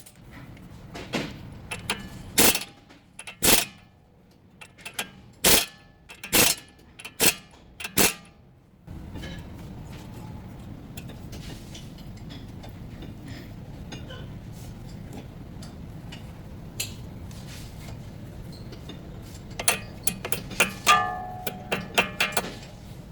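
Sharp knocks and clicks about a second apart, then a steady background hiss with a quick cluster of clicks near the end.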